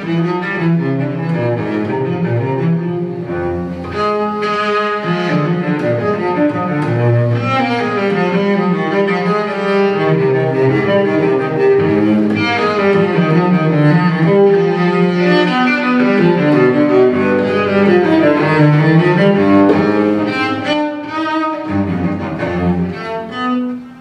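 Classical cello music played through a pair of Audioengine A5+ powered bookshelf speakers, picked up by a phone's microphone in the room.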